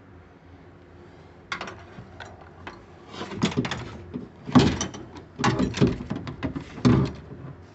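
Clicks, knocks and rattling of metal and plastic parts inside a car door as a new inside door-handle part is worked into place: one click about a second and a half in, then clusters of clunks from about three seconds in until near the end.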